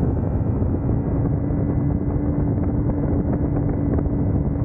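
Kawasaki Ninja motorcycle running, with heavy wind rushing over the microphone; a steady hum sets in about half a second in.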